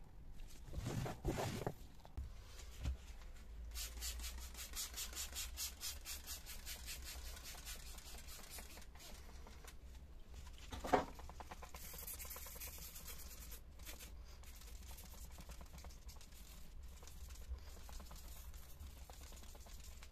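Rubbing and handling noises on car interior plastic, with a short hiss of a trigger sprayer misting diluted all-purpose cleaner about twelve seconds in.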